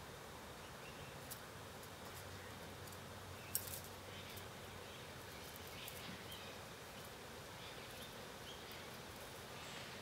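Faint, steady outdoor background noise with a few soft, scattered clicks and ticks, one sharper click about three and a half seconds in.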